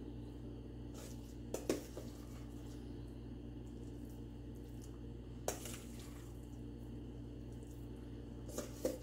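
A metal spoon clinking against the dishes while dollops of mashed butternut squash are spooned onto the pie: a pair of clinks about a second and a half in, one in the middle, and another pair near the end, over a steady low hum.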